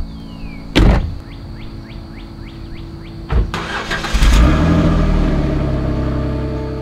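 A thump, a run of light clicks at about three a second and a second thump, then a Jeep Wrangler engine cranks and catches about four seconds in. Its revs flare and then ease down toward idle.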